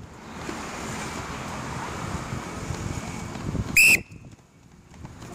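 One short, loud blast on a coach's whistle about four seconds in, over a steady wash of wind noise on the microphone.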